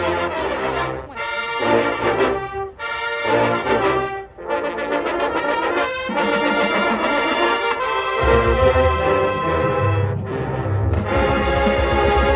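Marching band brass playing loud chords in short phrases separated by brief breaks, then holding sustained chords. A heavy low bass comes in about eight seconds in.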